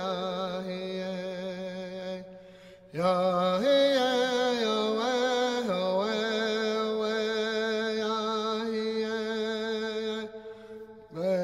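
Background music: a slow solo melody of long held notes, each sliding up into pitch and wavering, with two short pauses between phrases.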